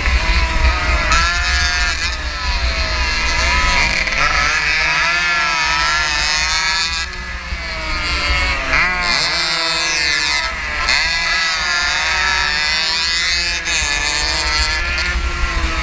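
115cc racing motorcycle engine at full race pace, its pitch rising and falling again and again as the rider accelerates, shifts and brakes for corners, with a steep climb in revs about nine seconds in. A steady low wind rumble on the microphone runs underneath.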